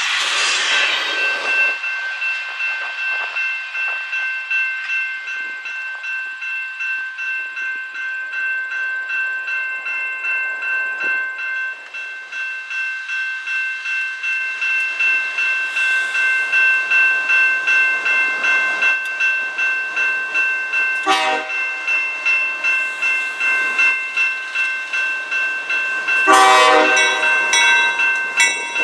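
Railway crossing bell ringing steadily at about two strikes a second as a CP GE ES44AC-led freight approaches. The locomotive horn gives a short blast about two-thirds of the way through and a longer, louder blast near the end. Wheel noise from the tail of a passing freight train fades away in the first second or two.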